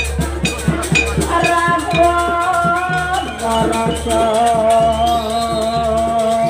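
Live Javanese jaranan ensemble playing loud trance music: drums and rattling percussion keep a steady beat, and from about a second and a half in a wavering melody of long held notes plays over it.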